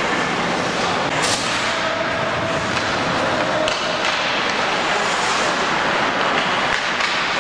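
Ice hockey game sound in an arena: a steady wash of skating and crowd noise, broken by a few sharp clacks of stick and puck, the clearest a little over a second in and near four seconds.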